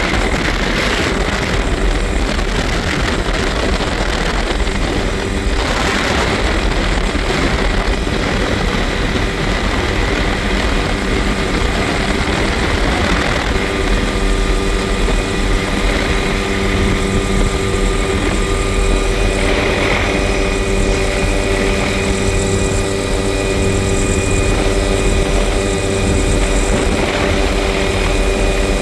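Helicopter in flight with its doors off: steady, loud turbine and rotor noise with wind rushing through the open cabin.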